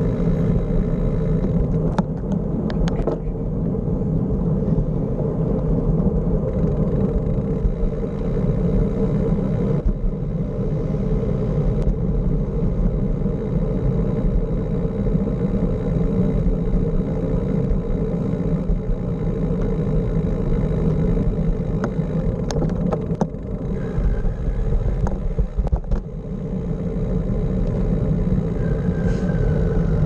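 Steady wind rumble on a bicycle-mounted camera's microphone as the bike rolls over asphalt. A few sharp clicks and rattles come about two seconds in and again a little past the twenty-second mark, and a short falling squeak sounds near the end.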